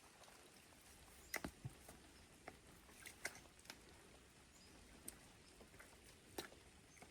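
Near silence with faint, irregular clicks and ticks scattered through it, a few clustered about a second and a half in and around three seconds in.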